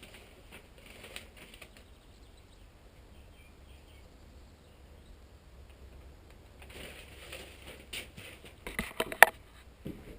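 Faint rustling and scattered clicks, then a cluster of sharp knocks and clatters about nine seconds in.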